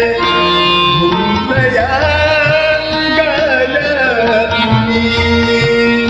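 Instrumental passage of a Marathi bhavgeet: a melody line with gliding, ornamented pitch over a steady hand-drum beat.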